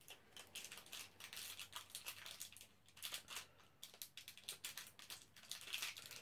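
Faint, irregular crinkling and clicking of plastic ration packaging being handled.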